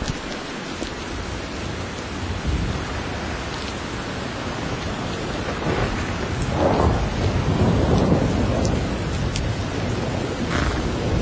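Steady rain with thunder, a low rumble swelling up about two-thirds of the way through.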